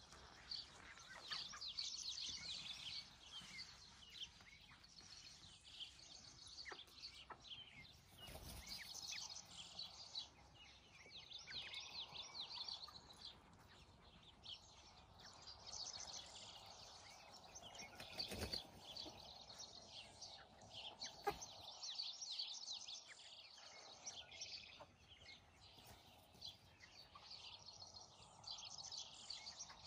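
Birds chirping in quick clusters of high calls, with soft, low clucking from foraging chickens in places and a couple of dull bumps.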